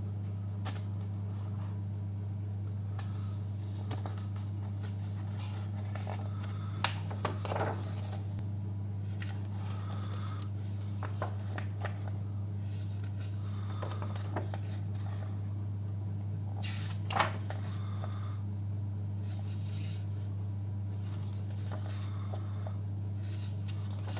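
A steady low hum throughout, with soft paper rustles and clicks as the pages of a large printed art catalogue are handled and turned. There are sharper page sounds around seven seconds in and again about seventeen seconds in.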